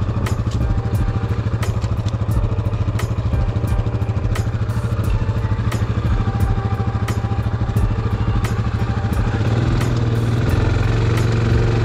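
ATV engine idling steadily with a regular ticking over it. About nine and a half seconds in, it picks up slightly to a somewhat higher, steady speed.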